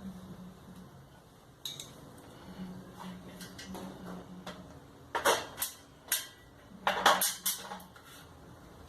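Sharp metallic clinks and knocks, as parts and screws of a dryer cabinet are handled during reassembly, in two short clusters about five and seven seconds in.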